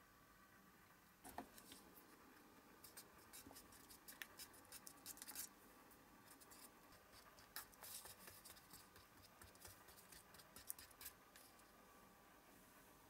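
Faint scraping and scattered light clicks of a thin stick stirring a thick liquid against the sides of a small plastic cup.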